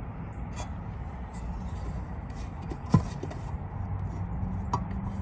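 Plastic fuel-cap tether clip being crushed with pliers and popping free of the fuel door with one sharp click about three seconds in, followed by a smaller click near the end, over a steady low background rumble.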